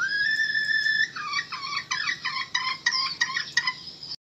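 Red junglefowl hen calling: one drawn-out note that rises and holds for about a second, then a run of quick clucking notes, about three a second. A decoy hen call of the kind played to lure wild junglefowl into a trap.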